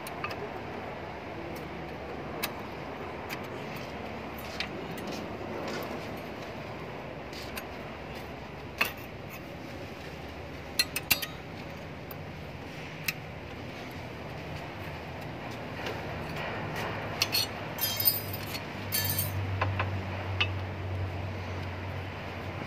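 Scattered metal clinks and taps from disc-brake pads and a brake caliper being handled and fitted at a car's front wheel, with a quick run of clinks near the end.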